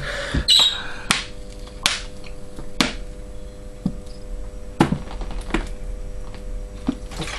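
A person gulping water from a plastic bottle: sharp gulps and bottle clicks, roughly one a second with a pause in the middle, over a faint steady hum.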